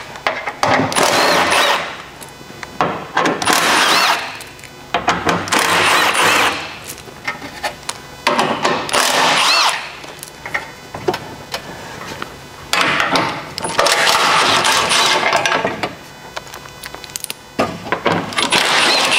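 Cordless impact wrench hammering out the 12 mm skid plate bolts one after another, in repeated bursts of one to two seconds with short pauses between.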